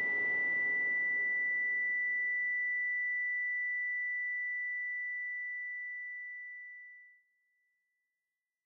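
A single steady, high-pitched electronic tone, like a broadcast test tone. It slowly fades, then cuts off about seven seconds in.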